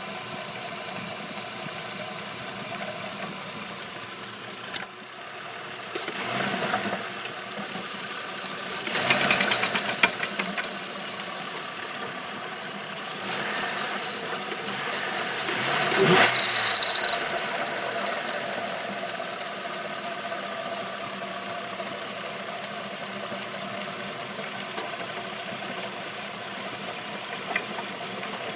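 Chevrolet Trailblazer engine running at idle with a failing water pump. A sharp click comes about five seconds in, then several louder rattling surges, and a brief high squeal near the middle.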